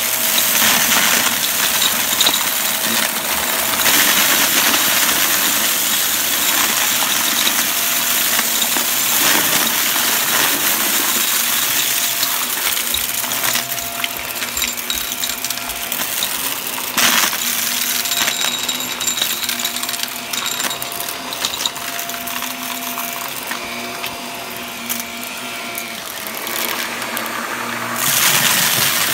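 Shark upright vacuum running while it sucks up a pile of crunchy debris from carpet, with dense rattling and clicking from the bits hitting the inside of the machine. It eases off a little past the middle and gets louder again near the end as the head goes back into the pile.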